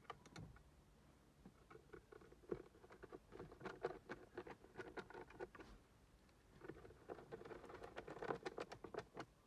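Screwdriver turning the small screws that hold the fan regulator to a Saab 9-3's plastic cabin blower motor housing: two runs of quick, faint clicking and scraping, one in the first half and one in the second.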